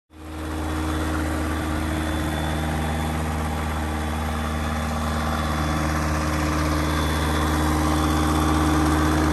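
Turbocharged Rotax 914 engine of a RANS S-7S light aircraft running steadily, with an even low hum and propeller drone. It fades in at the start and grows slightly louder near the end.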